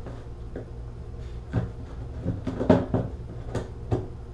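Old caulk being picked and scraped away by hand from around the tub spout pipe opening: a handful of short scratchy knocks and scrapes, the loudest a little under three seconds in.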